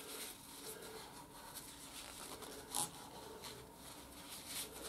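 Faint rustling of a paper tissue and small handling ticks as hands work around a motorcycle's handlebar front brake fluid reservoir, with one sharper tick a little under three seconds in.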